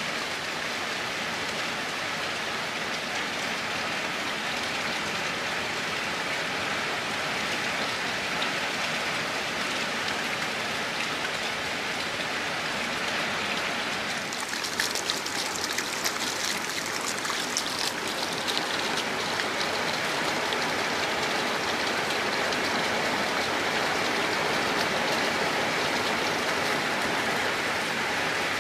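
Steady rain falling as an even hiss of drops. About halfway through there is a few-second run of sharper, crackling drop hits, and the rain grows slightly louder toward the end.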